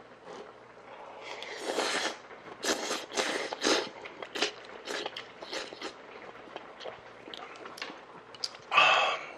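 Noodles and broth being slurped from a bowl in several noisy rushes, followed by chewing with small clicks of a spoon against the bowl. There is one short loud burst near the end.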